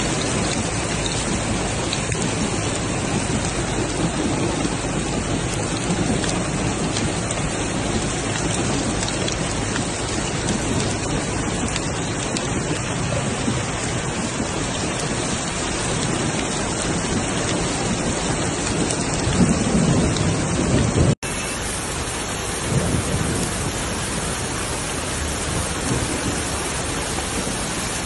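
Heavy rain and floodwater rushing down a street in a flash flood, a loud, steady, dense noise of water. It breaks off abruptly about three-quarters of the way through, and a second recording of rushing floodwater follows.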